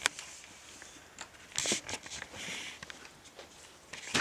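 Faint scratching and rustling of a ballpoint pen drawing on paper, with a sharp click at the start.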